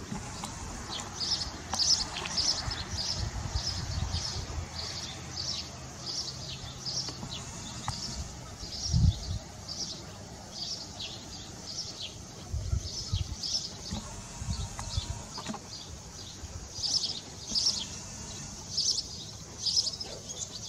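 Small birds chirping, many short high calls repeated over and over, with low rumbles now and then underneath, loudest about 9 seconds in.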